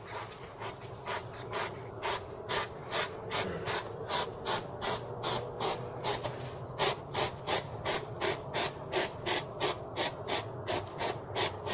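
European hedgehog snuffling as it forages, a run of short sniffing huffs that starts at about two a second and quickens to about three a second about seven seconds in.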